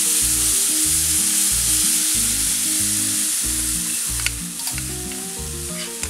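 Hot coconut oil sizzling loudly as boiled potato pieces drop into a tempering of mustard seeds, shallot, dry chilli and curry leaves; the sizzle slowly dies down, with a couple of light clicks of a utensil near the end.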